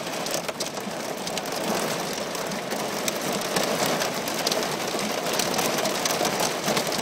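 Heavy rain and hail pelting the roof and windshield of a car, heard from inside the cabin: a dense, steady patter with many sharp ticks from individual hits.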